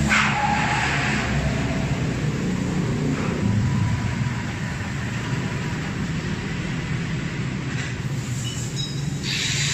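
Electric arc welder buzzing steadily while welding shut a cracked, holed aluminium engine case at the centre-stand mount, with a sharp crackle as the arc strikes at the start.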